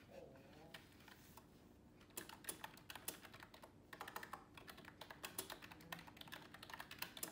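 Typing on a keyboard with round, typewriter-style keycaps: quick runs of key clicks, starting about two seconds in after a quiet stretch.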